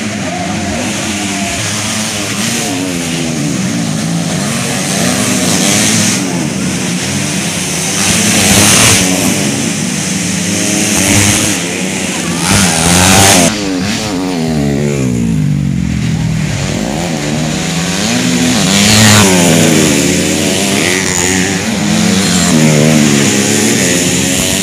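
Several motocross bikes racing, their engines revving up and down together, with louder surges as bikes pass close, about three times.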